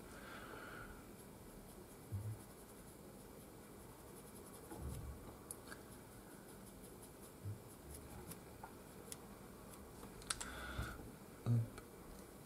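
Faint brush strokes on a small painted figurine bust, a fine paintbrush dabbing and scratching oil paint onto the face, with light ticks and a few soft knocks of handling.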